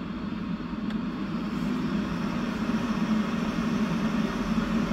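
Prima Klima Whisperblower 125 mm inline duct fan running on its highest setting (530 m³/h), a steady rush of air with a low hum. It gets louder over the first couple of seconds as it comes up to speed, then holds steady.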